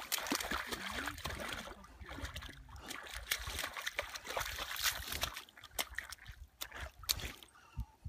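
Small rubber boots squelching and splashing through a shallow muddy puddle, in quick irregular steps. After about five seconds the splashes become sparser and quieter, small dabbling sounds in the water.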